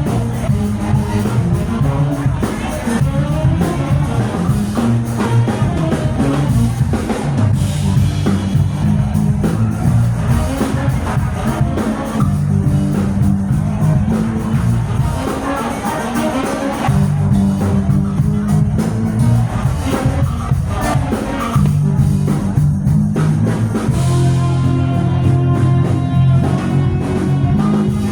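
Live band playing with electric guitar, drum kit and a prominent bass line that moves between notes.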